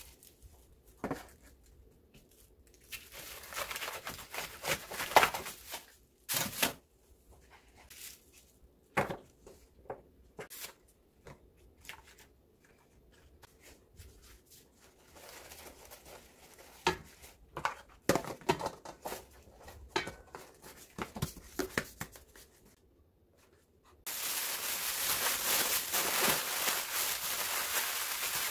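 Large green onions being trimmed with a knife and kitchen scissors: sharp snips and clicks through the stalks and leaves, with plastic bag rustling between them. For the last few seconds, a thin plastic bag is crumpled in the hands, a dense crinkling that is the loudest part.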